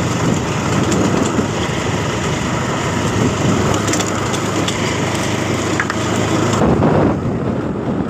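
Motorcycle being ridden over an unpaved dirt and gravel road: a steady engine note under loud, dense road noise from the rough surface. The sound turns duller about two-thirds of the way through.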